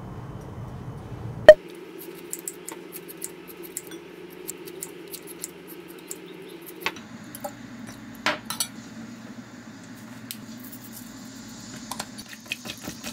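Kitchen scissors snipping raw chicken thigh meat over a glass bowl, many small clicks, after one sharp knock about a second and a half in. From about halfway, a metal spoon clinks against the glass bowl a few times as the chicken is seasoned.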